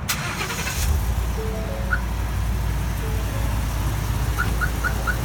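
A 2015 Ford F-150's engine started by remote start: a brief crank, then the engine catches about a second in and settles into a steady idle. Short electronic beeps and chirps sound over it, once around two seconds in and four quick ones near the end.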